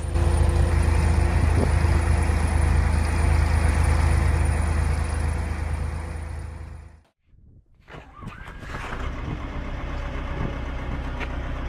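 Heavy vehicle engine running with a loud, steady low drone. It cuts off abruptly about seven seconds in, and after about a second of near silence a quieter engine sound comes in.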